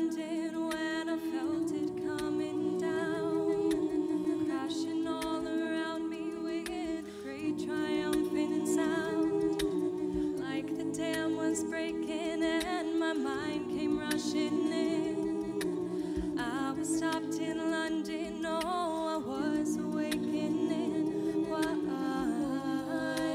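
A cappella group singing: a female soloist sings the melody into a microphone over the group's sustained backing chords, which shift every second or two.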